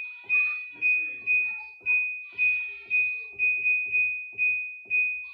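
Hisense WTJA802T top-loader's control panel beeping once per button press: a quick series of about a dozen short, high, identical beeps, roughly two a second, as the spin setting is stepped down to zero.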